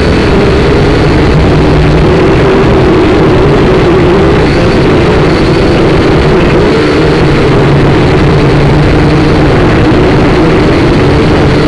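Small electric motors and propellers of a SYMA toy quadcopter whining loudly, heard close up through its own onboard camera. The pitch wavers up and down as the motor speeds shift.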